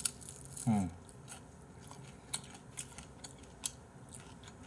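Crispy fried chicken being bitten and chewed close to the microphone: a run of sharp, irregular crunches, with a short falling hum from the eater about a second in.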